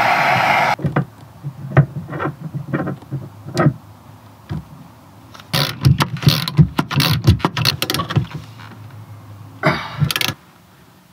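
Handheld gas blowtorch hissing steadily as it heats the propeller-shaft coupling so it can be slid onto the shaft; the hiss cuts off abruptly under a second in. Then come a run of sharp metallic clicks and clanks as a ratchet wrench works the coupling bolts, densest around the middle and again near the end.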